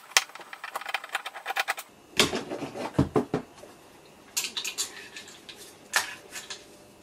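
Hand screwdriver undoing the screws that hold a monitor stand to the plastic back of a monitor: a quick run of small clicks for about two seconds, then a few heavier knocks as the stand is lifted off. More clicking follows, and there is a sharp knock about six seconds in.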